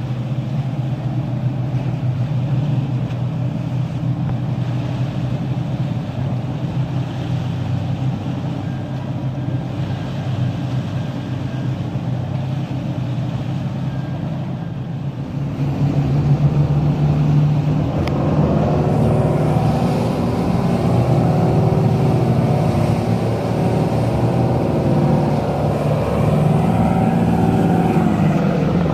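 Marine diesel engines running: a steady low drone that gets louder and fuller about halfway through, with a stack of steady tones added.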